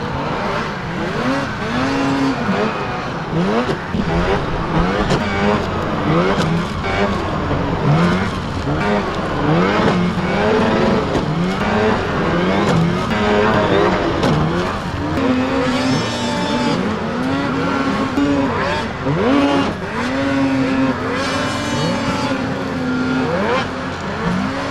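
Several racing snowmobile engines revving, each one's whine rising as it accelerates and dropping as it backs off. The sleds overlap one another as they take the corner and the jump.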